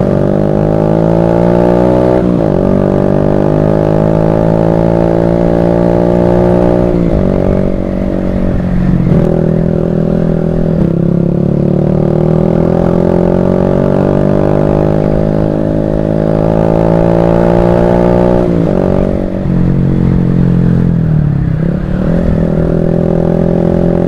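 Automatic scooter's engine through an open aftermarket SC Project exhaust (knalpot brong), pulling under throttle with a slowly climbing pitch. The pitch drops sharply four times as the throttle is eased off, then climbs again.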